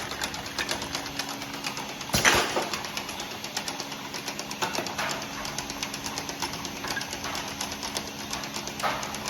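Jar vacuum leak detection machine and its conveyor running: a steady hum with rapid, fairly even ticking. One louder knock about two seconds in.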